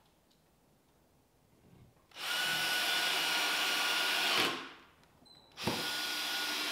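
Cordless drill driving pocket-hole screws into a plywood cabinet carcass, in two runs: it starts about two seconds in and runs steadily for a couple of seconds, stops, then starts again about a second later.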